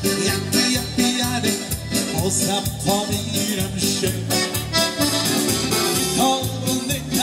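Dance-band music with accordion over a steady, even beat.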